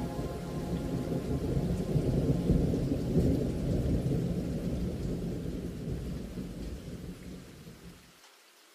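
Low rumble of thunder with rain, swelling about two to three seconds in, then slowly fading and cutting off near the end.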